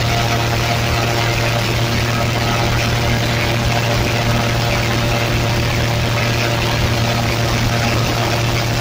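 Airboat's engine and rear air propeller running at a steady cruise: a loud, even drone with a deep hum and a hiss of rushing air over it.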